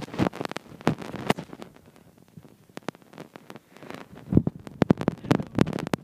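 Handling noise from an iPad being moved about: irregular sharp clicks, knocks and rubbing, with the crackle of its microphone.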